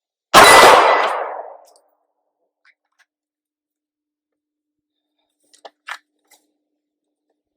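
A single 9mm pistol shot from a Glock 43X, a sharp crack that echoes and dies away over about a second and a half. A couple of faint clicks follow near the end.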